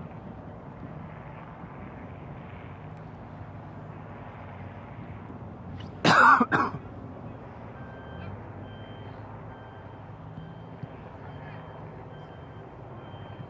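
A man coughs twice in quick succession, loud against a steady low outdoor background, about halfway through. From about two seconds later a faint beeping repeats at even intervals in the background.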